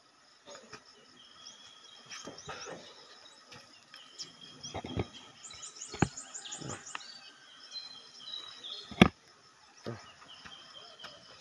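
Birds chirping and calling in garden vegetation, with a rapid run of high notes about halfway through. A few sharp close knocks break in, the loudest about nine seconds in.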